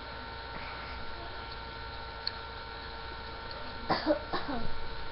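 Steady electrical hum with several faint steady tones. About four seconds in come a few short sharp clicks and a brief voice-like sound.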